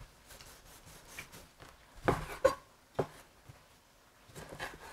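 Knife cutting tomatoes on a cutting board: scattered quiet cuts and scrapes, with louder knocks about two seconds in, at three seconds and near the end.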